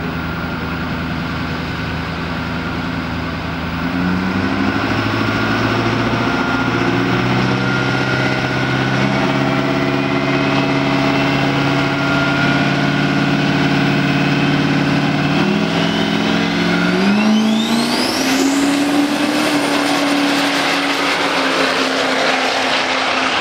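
Turbocharged Duramax diesel drag pickup held on the starting line at raised revs, the engine note stepping up a couple of times as it builds boost. About seventeen seconds in the revs climb sharply as it launches, and a rising whine follows as it pulls away down the strip.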